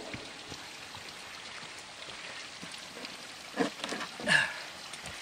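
Steady outdoor hiss, with a few soft knocks and rustles near the end as a man handles the plywood form around a concrete pole base.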